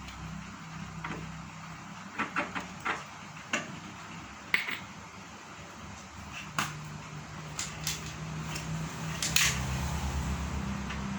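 Scattered clicks and knocks of metal parts of a meat-grinder-type pellet machine being handled and fitted together, over a low hum that grows louder near the end.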